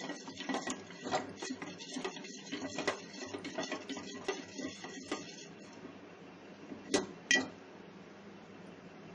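A spoon stirring cornflour slurry in a small bowl, clinking and scraping quickly against its sides, stopping a little over halfway through; two sharper clinks follow about a second later.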